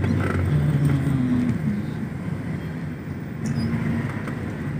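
Car being driven: steady engine and road rumble heard from inside the cabin.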